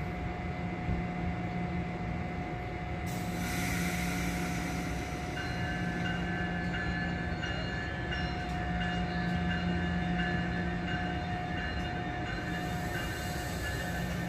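NJ Transit bilevel commuter train rolling past at low speed: a steady rumble with a low hum underneath. From about five seconds in, a high, thin whine joins it, wavering on and off.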